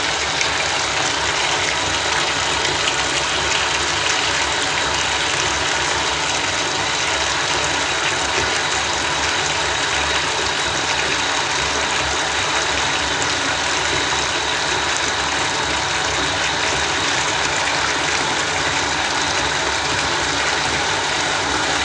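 Bath tap running, a steady stream of water pouring into a filling bathtub, in a tiled bathroom.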